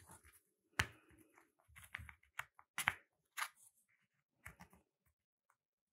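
Cardboard jigsaw puzzle pieces being handled on a table: a scatter of light clicks and taps at an uneven pace, the sharpest about a second in and just before three seconds.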